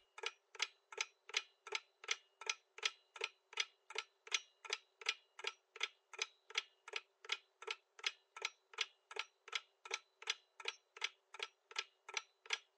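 Clock-ticking countdown sound effect, a steady tick about three times a second, counting down the time allowed to answer a quiz question.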